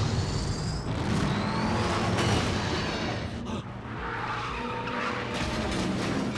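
Car sound effects: an engine running hard with tyres screeching, the pitch rising in several sweeps.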